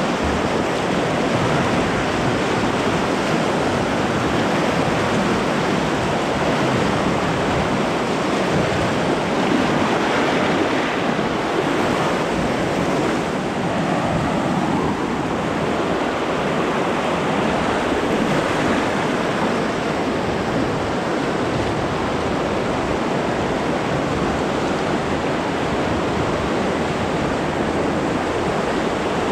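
Loud, steady rush of white-water rapids churning around an open canoe, with no letup.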